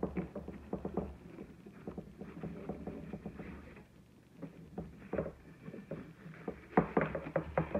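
Wired fabric ribbon rustling and scraping against a metal gift tin as it is pulled tight and tied, in irregular short scratchy handling sounds with a quieter stretch midway.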